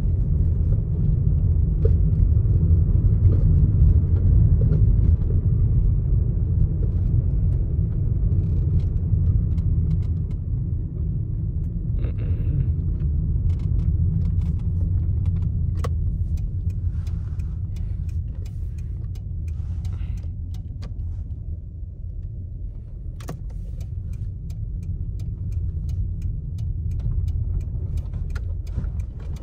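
Low rumble of a car's engine and tyres heard from inside the cabin while driving, easing off a little after about ten seconds. Scattered light clicks and rattles come in during the second half.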